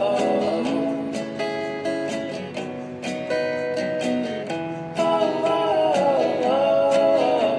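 Background music: the intro of an acoustic pop song, with strummed guitar under a wavering melody line, before the vocals come in.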